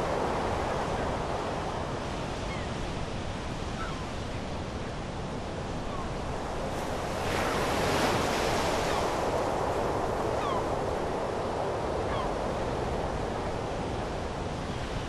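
Sea surf washing on a flat sandy beach: a steady rush of noise that swells about seven seconds in and eases off again a couple of seconds later.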